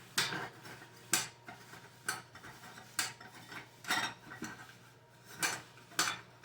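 Muffin pan knocking and clattering on the counter as oil is wiped into its cups with a paper towel: sharp knocks roughly once a second, with faint rubbing between them.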